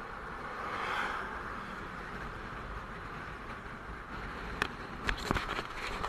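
Steady wind and road rush from a camera riding on a moving motorcycle, the Bajaj Avenger 220. A few sharp clicks come near the end.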